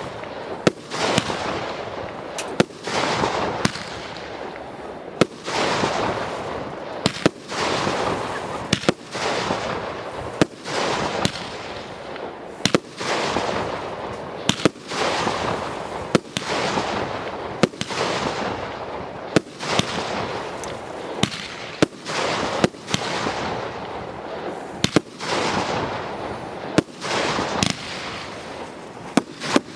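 Fireworks display: sharp bangs of aerial shells every second or two, each followed by a hissing crackle that fades away.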